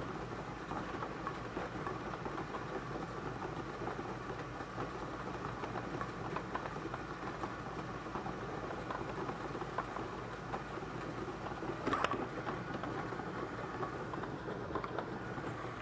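Air-mix bingo ball blower running, with ping-pong-style bingo balls tumbling and clattering in its chamber, and one louder knock about twelve seconds in.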